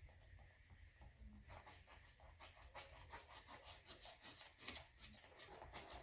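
Faint, rapid scratchy strokes of a hand cutter trimming craft material, starting about a second and a half in.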